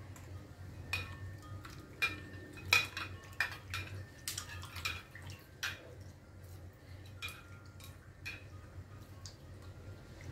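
Scattered light clinks and taps of kitchen dishes and utensils, irregular and a second or so apart, over a low steady hum.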